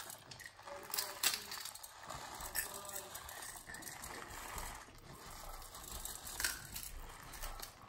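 Whole black peppercorns poured from a plastic bag, pattering and rattling down onto chopped vegetables in a glass jar as a run of small scattered clicks, with light rustling of the bag.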